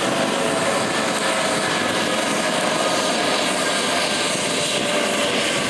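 Eurocopter EC135 helicopter running on the ground: a steady turbine whine over the rush of its rotors.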